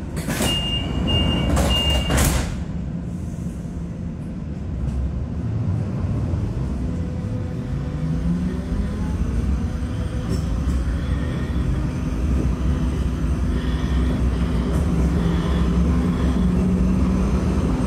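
Munich U-Bahn B-type train car (with ASR): the door-closing warning tone beeps three times with a clatter of doors shutting. The train then pulls away, its traction motors whining and rising in pitch over a steady rumble of running gear as it accelerates.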